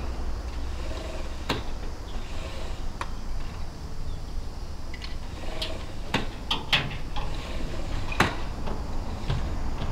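Irregular sharp knocks and clacks from work on the eaves, about half a dozen of them, several close together in the middle of the stretch, over a steady low rumble.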